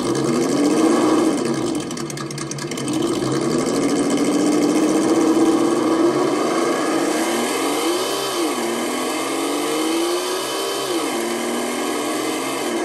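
WonVon engine sound simulator's speaker on an RC crawler playing a simulated engine that revs up and down with the throttle as the truck's wheels spin. It gives one long held rev, then two quicker revs near the end that climb and drop back.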